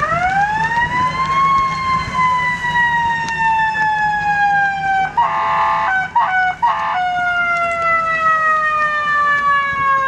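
Fire department boat's siren winding up over about a second and a half and then slowly falling in pitch. About halfway through, the siren gives way to three flat horn blasts, one longer and two short.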